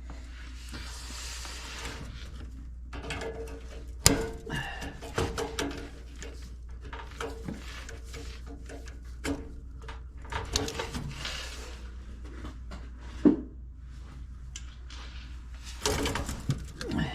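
Hands working wire connectors off and onto an HVAC control board: scattered small clicks and rustling, with two sharp clicks about four and thirteen seconds in, over a steady low hum.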